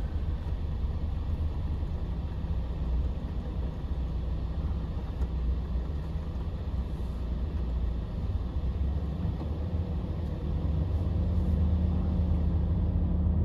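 Volvo FH 460 truck's 13-litre six-cylinder diesel engine running at low speed, heard from inside the cab as the truck rolls slowly. The engine note rises slightly about two-thirds of the way in.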